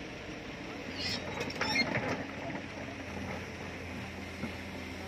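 Hitachi hydraulic excavator's engine running steadily while its bucket digs a trench in soil, with a burst of knocks and scraping about a second in as the bucket works the dirt.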